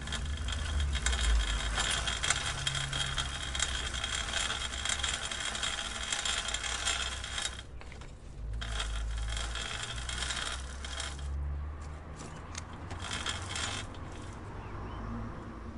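Bicycle chain clicking in a rapid, dense run. It breaks off briefly about halfway, resumes, then thins to scattered clicks and quiets near the end, over a low rumble.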